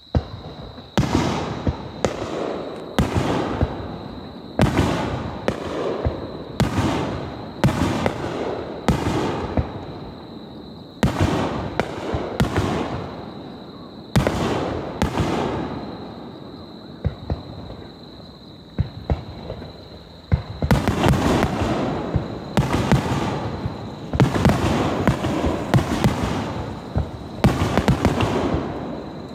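Aerial firework shells bursting one after another, about one a second, each a sharp bang trailing off in a rolling rumble. After a brief lull about two-thirds through, the bangs come thicker and overlap.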